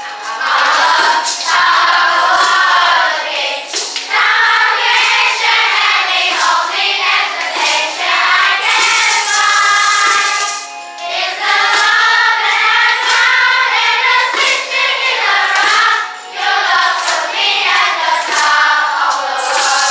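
A class of fifth-grade children singing together as a choir in English, over a musical accompaniment with a regular percussive beat.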